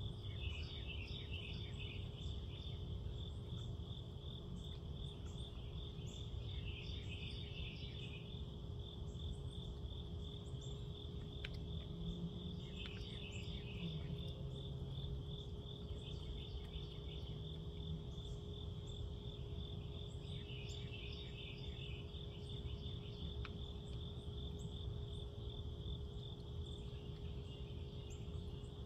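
Night insect chorus: a steady high cricket trill, with bouts of lower pulsed insect calls every several seconds. A faint steady low hum and rumble sit underneath.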